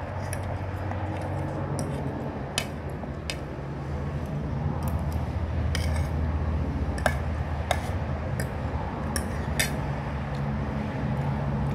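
Metal fork and spoon clinking and scraping against a ceramic plate, about ten scattered clicks, over a steady low hum.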